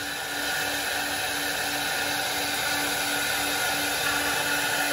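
Multi-head CNC router with a rotary 4th-axis attachment, its spindles carving turning wooden blanks: a steady machining noise of cutters in wood, with a low hum that pulses evenly a few times a second.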